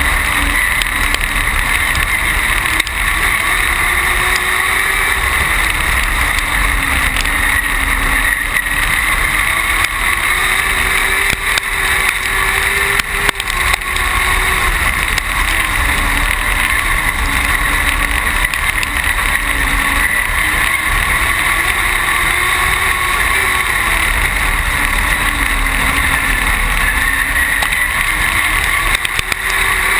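Dwarf race car's engine running hard, heard from inside the car, its pitch rising and falling every few seconds as it accelerates and lifts. A heavy, steady rumble of wind and chassis noise runs underneath.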